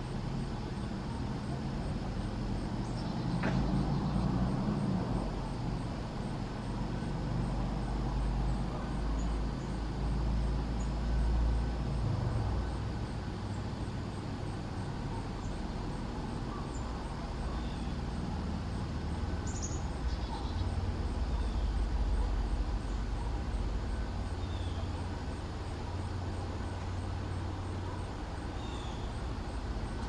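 Low rumble of distant road traffic that swells and fades, with a few short, high bird chip notes in the second half.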